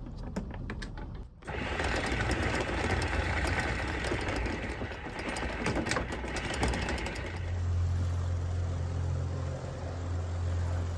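Electric anchor windlass on a sailboat's bow: a quick run of clacks from the anchor chain, then a steady mechanical whirr as it runs. Past the middle a steady low engine hum comes in.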